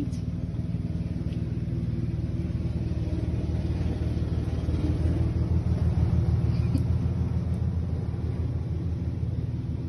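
A steady low mechanical rumble, growing a little louder around the middle, with a few faint clicks.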